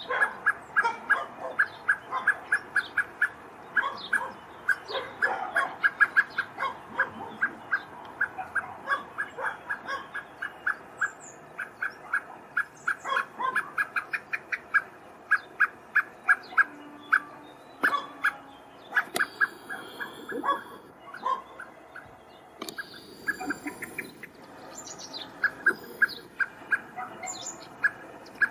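Male common blackbird giving a long run of rapid, repeated short alarm calls, about four or five a second at first and more spaced out later, the sign of a parent bird agitated while looking for its fledgling. Thin high whistles join in from about two-thirds of the way through.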